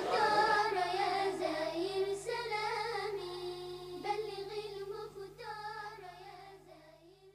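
Arabic nasheed: a single high voice singing a wavering melody over a steady low tone, fading out over the last few seconds.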